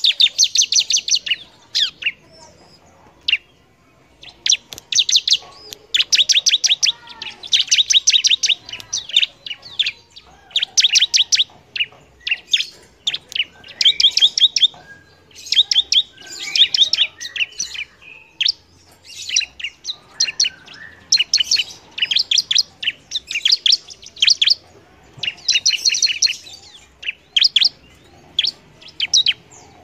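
Ciblek (bar-winged prinia) singing in its lively, full-song form: rapid runs of high, sharp chirping notes in bursts about a second long, repeated again and again with short pauses between them.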